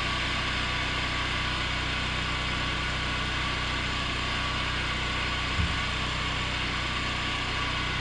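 Steady engine-like hum with an even hiss over it, and one brief thump about five and a half seconds in.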